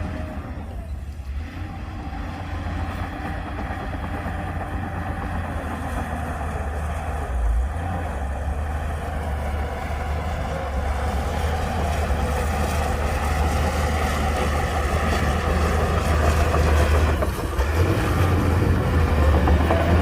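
Heavy earthmoving machine's diesel engine running under load with a deep low rumble, growing gradually louder toward the end.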